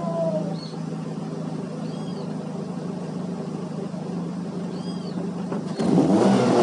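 Ford Focus 2.0 Duratec inline-four through its stock exhaust: the revs fall back to a steady idle, then a sharp blip of the throttle near the end.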